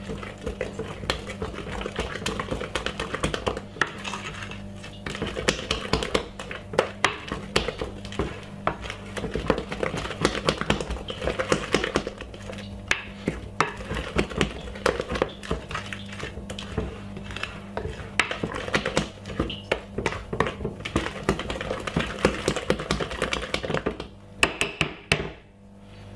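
A wooden spoon beats thick cake batter in a glass bowl, a fast, irregular run of scraping and knocking against the glass. Near the end there are a few separate knocks before a brief lull, over a steady low hum.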